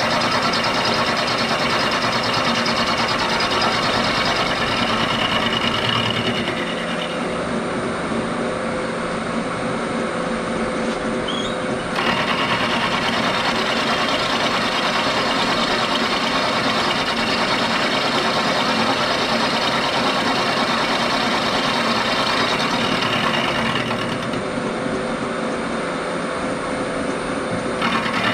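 Bridgeport milling machine running, its end mill cutting across the face of a model steam-locomotive cylinder casting: steady spindle running under the dense noise of the cut. The cutting noise eases for a few seconds about a quarter of the way in and again near the end, then picks back up.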